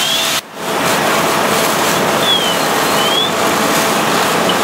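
Steady rushing hiss of fire-hose streams spraying water onto a burning house. The sound drops out briefly about half a second in.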